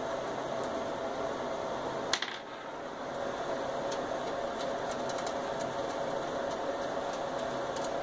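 Small metallic clicks and ticks of thumb screws being turned out by hand on the back of a desktop PC case, with one sharper click about two seconds in, over a steady background hum.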